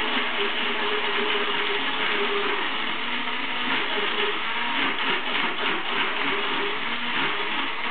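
Countertop electric blender running steadily, blending a coffee drink in its glass jar.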